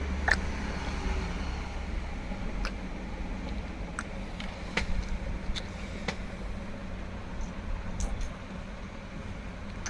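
Scattered sharp clicks and taps, about eight, of small parts of a washing machine timer being handled, over a steady low hum.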